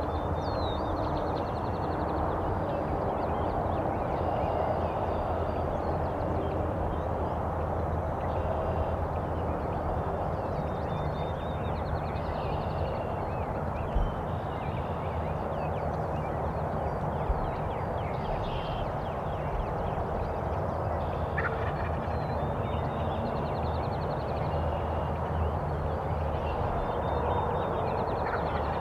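A wild turkey gobbler gobbling in the distance, over small birds singing short high trills and a steady low rumble. Two sharp knocks fall around the middle.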